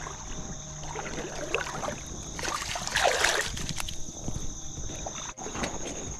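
Splash and slosh of water as a striped bass is let go by hand into shallow river water, loudest about three seconds in.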